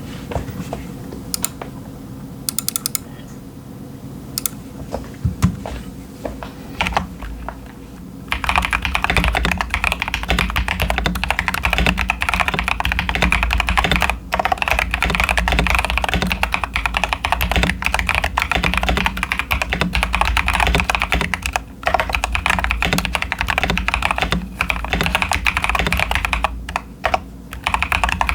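Mechanical keyboard typing on a CIY Tester 68 with linear Ashkeebs Auralite switches and Cherry-profile dye-sub PBT keycaps; the board has tape and towel-foam mods and lubed stabilizers. A few separate key presses come first, including a quick run of repeated presses, then continuous fast typing begins about eight seconds in.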